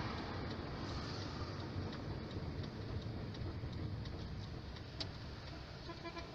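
A car's turn-signal indicator clicking steadily, about three clicks a second, over the low rumble of the engine and road inside the car.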